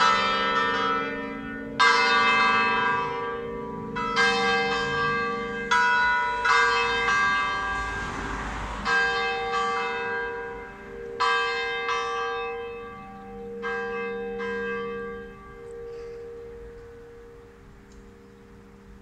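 Church bells swinging in the tower, striking irregularly as the peal winds down: the strokes grow sparser and stop about three-quarters of the way through, leaving the bells' hum dying away.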